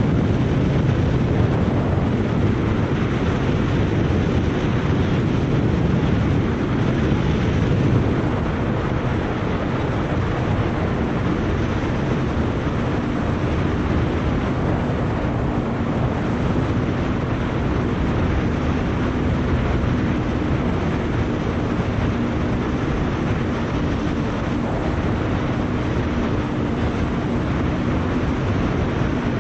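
Outboard motor on an aluminium boat running steadily at speed, with water rushing past the hull. About a third of the way in a steady engine hum comes through more clearly.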